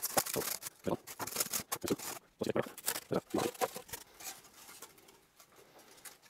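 Hot-wire-cut foam fuselage pieces being pulled apart and handled. A quick run of foam-on-foam scraping and rubbing with light knocks, dying down after about four seconds.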